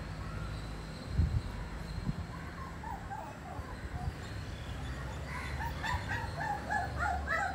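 Birds calling in a series of short repeated notes, starting about three seconds in and coming faster near the end, over a steady low rumble with a thump about a second in.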